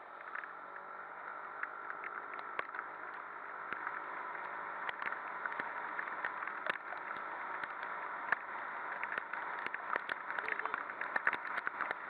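Steady rush of wind and wet-road noise from a Suzuki Address 110 scooter riding through heavy rain, with frequent sharp ticks of raindrops striking the camera that come thicker toward the end.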